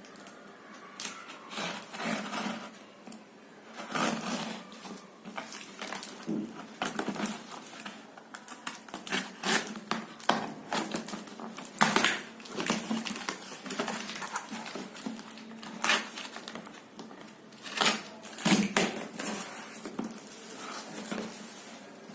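A parcel being unwrapped by hand: its packaging rustling, crinkling and tearing, with irregular crackles and knocks.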